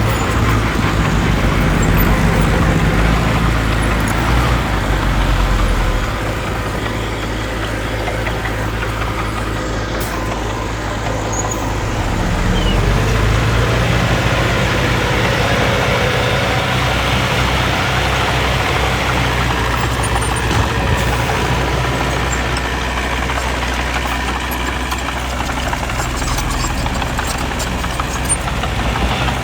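Diesel engines of heavy earthmoving machines running, with the engine note dropping about six seconds in and picking up again around thirteen seconds.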